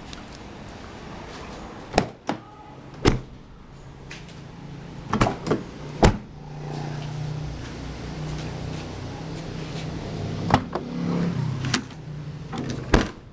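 Aftermarket car alarm on a 1991 Mercedes-Benz 230 E being armed and disarmed by remote: a series of short, sharp chirps and clicks from the alarm and door locks, some in quick pairs, over a low steady hum through the middle.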